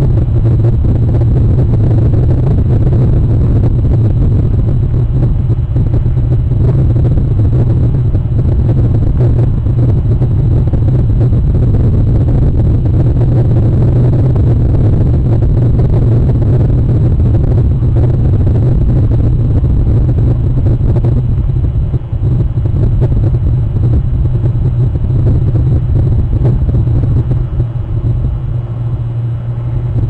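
A loud, steady low rumble that runs on without a break, dipping slightly about two-thirds of the way in.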